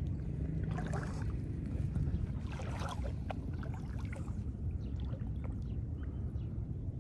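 Shoreline ambience: a steady low rumble of wind on the microphone under light water lapping at the rocks. Two brief splashy washes come about one second and three seconds in.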